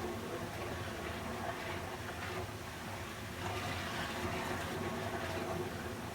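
Water running in a steady flow, a continuous rushing hiss with gentle swells in level.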